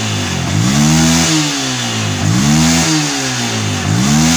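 Yamaha Vixion's single-cylinder engine blipped three times, each rev climbing and falling back to idle. With its faulty regulator-rectifier replaced, it now takes throttle without stalling.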